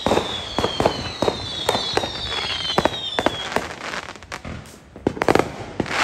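Consumer aerial fireworks going off: a quick run of sharp cracks and pops, with several whistles slowly falling in pitch over the first three seconds or so. Near the end a burst of crackling hiss comes as a glittering shell opens.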